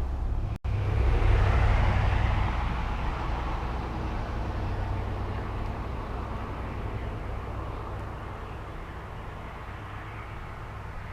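Road traffic on the bridge nearby: a vehicle passing with a low rumble and tyre noise, loudest a second or two in and slowly fading away.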